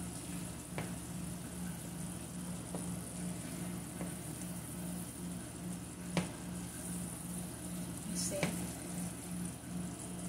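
Thick tomato-based omena fish stew sizzling softly in a frying pan as a silicone spatula stirs it, with a few light knocks of the spatula against the pan.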